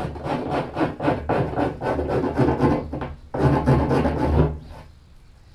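A hand rasp files the cut edge of a plastic barrel, smoothing the opening, in quick scraping strokes of about four a second. It pauses briefly about three seconds in, scrapes again in a faster burst, and stops near the end.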